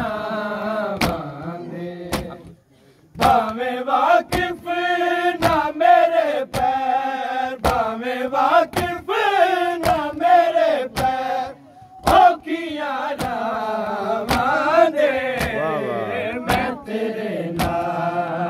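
Male voices chanting a noha (mourning lament) with a sharp slap about once a second keeping the beat: hands striking chests in matam. The chanting breaks off briefly about three seconds in.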